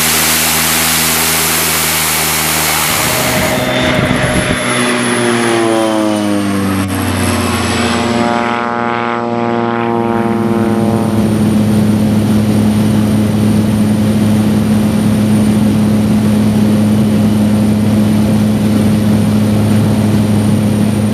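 Floatplane's propeller engine: after a few seconds of rushing noise, the engine note climbs steadily in pitch for several seconds, then holds at a steady pitch.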